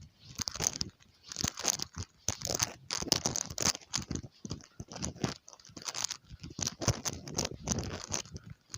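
Footsteps crunching through fresh snow at a steady walking pace.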